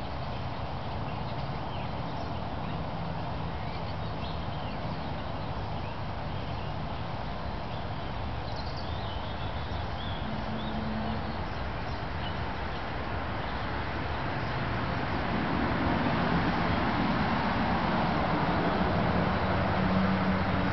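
Lawn mower running steadily in the garden, mulching leaves. It gives a steady noise with a low engine hum that grows louder about three-quarters of the way through as the mower comes closer.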